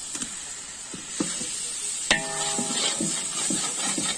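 A long-handled metal ladle stirring chicken in a large aluminium cooking pot, with soft knocks and one ringing clang of metal on the pot about two seconds in. A steady hiss from the gas burner runs underneath.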